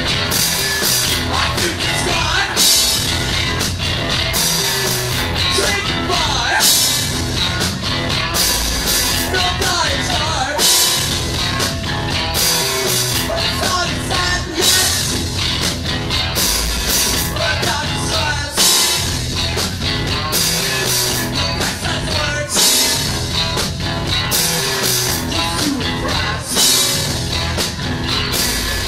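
Rock band playing loud live: electric guitar, bass guitar and a drum kit with regularly struck cymbals.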